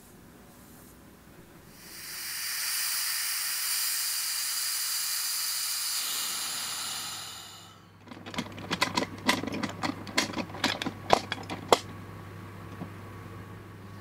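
Compressed air hissing out through the release valve of a resin-casting pressure pot for about five seconds, dying away as the pressure drops. Then a quick run of sharp metal clanks and clicks as the pot is opened.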